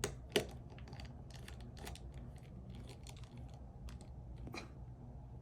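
Small clicks and ticks of a tri-wing (Y000) precision screwdriver working the screws out of a phone's internal bracket, with two sharper clicks just after the start and lighter scattered ticks after that.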